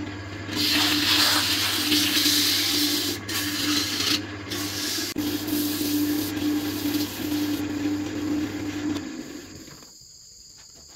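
Small wood lathe's motor running with a steady hum while sandpaper is pressed against the spinning wooden workpiece, giving a loud rasping hiss that is strongest in the first half. The motor stops about nine seconds in.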